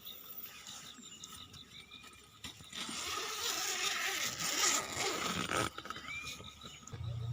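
A scraping, rustling noise lasting about three seconds in the middle, with a few faint short chirps before and after it.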